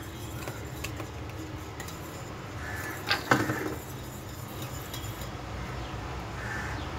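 Wire whisk clinking and scraping against the sides of a stainless steel saucepan as it stirs a thin milk mixture, with one louder metal knock about three seconds in.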